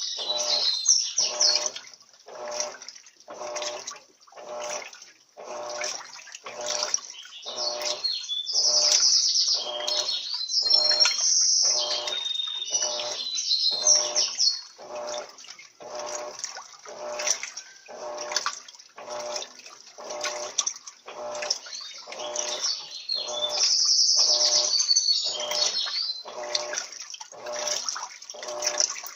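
Electrolux Turbo LT13B top-loading washing machine agitating a load, water sloshing in regular strokes about once a second. Birds chirp at a high pitch now and then over it.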